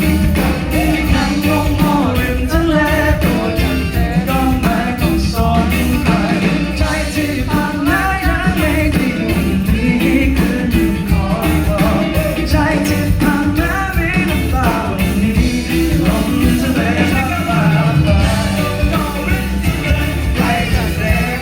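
A live rock band playing loudly, with a voice singing over drums and guitars.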